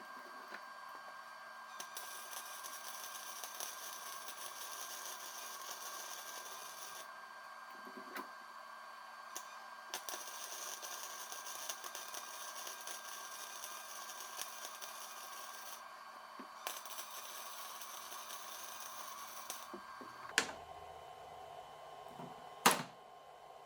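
Scattered light clicks and taps over a steady hum and hiss, with two sharp knocks near the end.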